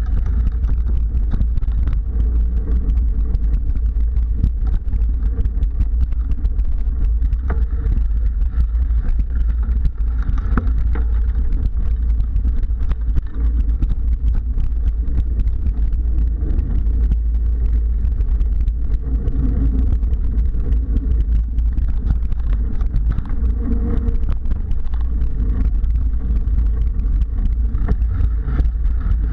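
Steady low wind-and-motion rumble on the camera's microphone as a mountain bike rolls along dirt singletrack, with frequent small knocks and rattles from bumps in the trail.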